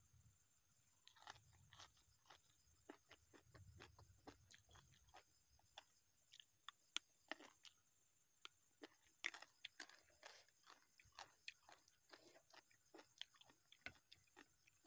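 Close-up chewing and crunching of raw vegetables in the mouth: many small crisp crunches, the sharpest about seven and nine seconds in.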